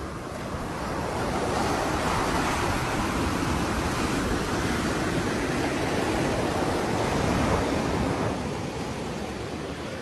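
Sea waves breaking on a beach: a wash of surf that builds about a second in and fades near the end.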